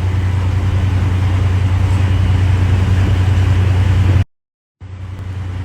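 Steady low engine hum with a hiss of noise over it, cutting off abruptly about four seconds in; after a brief silence the same kind of hum resumes, quieter.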